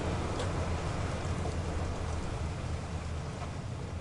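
Steady rain on a moving car over a low, even rumble of tyres on the wet road.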